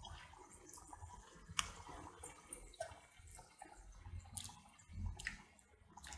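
Raw fish pieces dropped by hand, one at a time, into simmering curry liquid in a pan: faint wet plops and small splashes, several spread through, the sharpest about a second and a half in.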